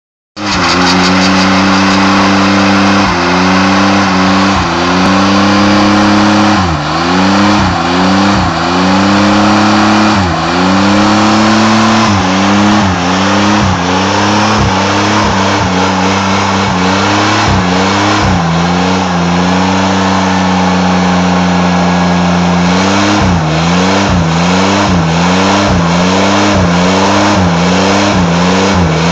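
Ford F-150 pickup doing a burnout: the engine is held at high revs and the rear tyres spin on the pavement. The engine note starts suddenly and holds steady, dipping briefly and picking back up many times as the revs waver.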